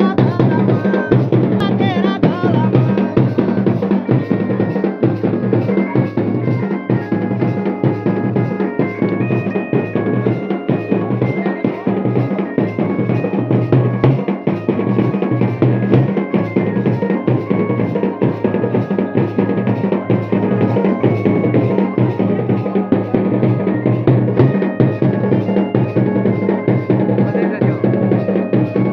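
Garhwali band baja drums beating a steady dance rhythm, with a melody instrument playing held notes that step from pitch to pitch over the drumming.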